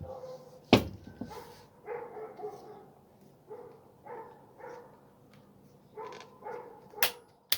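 A dog barking in short, repeated calls, about ten in all. Three sharp clicks sound among them: the loudest about three-quarters of a second in, and two near the end.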